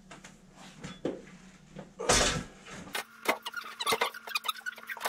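A front-load washing machine being lifted and carried by hand, its sheet-metal cabinet knocking and rattling. There is a short rush of noise about two seconds in, then a run of clunks and knocks.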